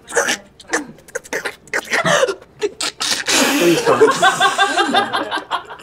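Nervous human laughter: short breathy bursts at first, then about three seconds in a long run of rapid laughing that lasts about two seconds.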